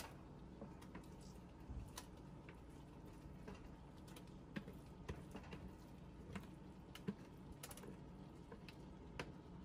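Metal kitchen tongs clicking and tapping against a plastic colander and a frying pan while scraping cooked spinach into the pan: light, irregular clicks over a faint low hum.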